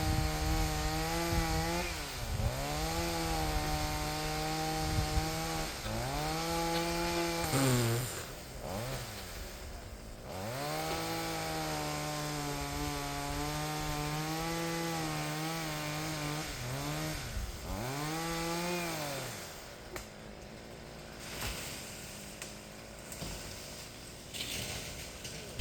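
Chainsaw running at high revs while cutting into a tree, its pitch dipping and climbing back several times as the throttle eases and opens again. About three quarters of the way through the engine note drops away to a quieter idle.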